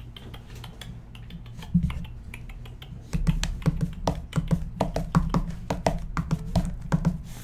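Fingers tapping on foil-wrapped trading card packs in a cardboard box: a quick, irregular run of light taps that starts about three seconds in.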